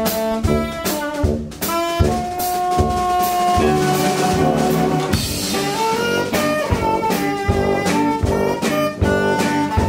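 A small jazz-leaning instrumental band playing live: tenor saxophone with electric guitar, tuba and drums, over a steady drum beat.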